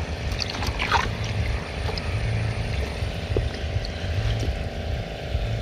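A motor running steadily: a low pulsing drone with a steady hum above it, and a few faint clicks.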